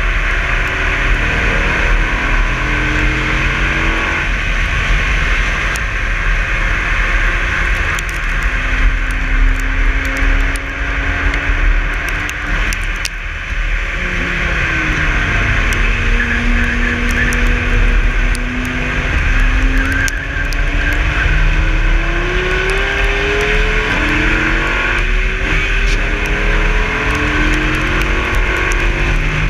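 Dodge Viper ACR's 8.4-litre V10 under hard acceleration on track, heard from a low front-splitter mount under heavy wind and road rush. The engine note climbs several times and falls back between pulls as the car shifts and brakes.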